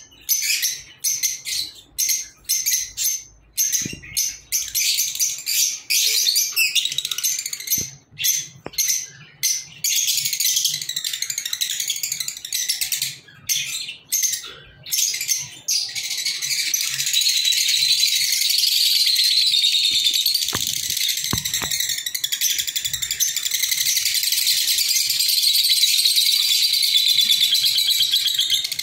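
Lovebirds chattering to each other in shrill, high-pitched chirps: short broken bursts at first, then a continuous stream of chatter from about halfway through.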